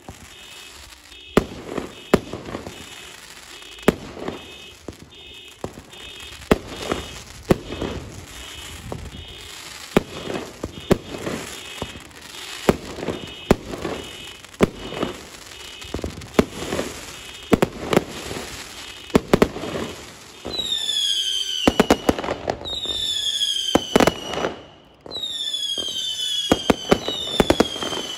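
Fireworks display: aerial shells burst again and again in sharp bangs. About two-thirds of the way through, a run of whistling fireworks joins them, each a high whistle falling in pitch, one after another among the bangs.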